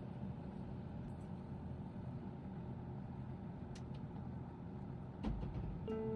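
A steady low rumble with a few faint clicks, a dull thump about five seconds in, and soft background music notes starting near the end.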